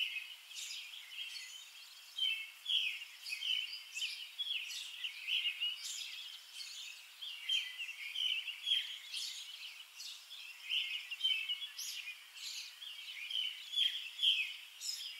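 Birds chirping and singing: a continuous run of short, high calls, one after another.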